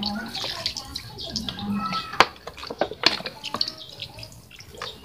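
Water poured from a plastic bottle splashing and dripping onto a motorcycle's metal engine block in irregular splats, wetting the engine before it is scrubbed clean.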